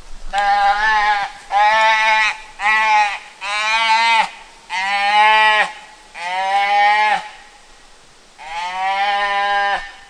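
A newborn Highland calf bawling seven times, each call drawn out for about a second, the first six in quick succession and the last after a short pause. This is the distress call of a calf that has just been caught and held by hand.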